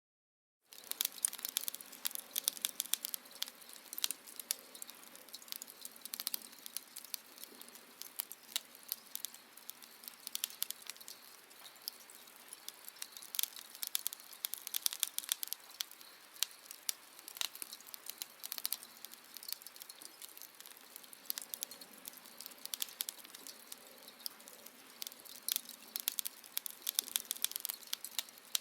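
Fire burning with dense, irregular crackling and popping over a soft hiss. It starts after a moment of silence, less than a second in.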